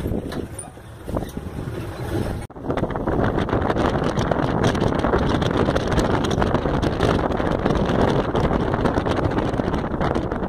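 Open-sided safari jeep driving, its engine and road noise mixed with wind buffeting the microphone. After a sudden break about 2.5 s in, the rush of wind and road noise turns louder and steadier.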